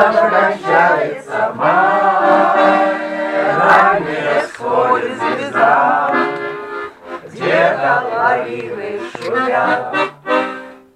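A group of amateur voices singing together in unison to accordion accompaniment, with held accordion chords under the melody; it breaks off abruptly near the end.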